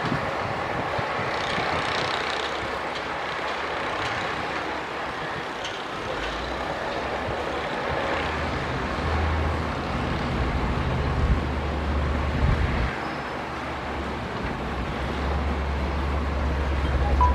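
Heavy diesel earthmoving machinery running, with a deep engine drone that sets in about six seconds in and rises and falls through the rest.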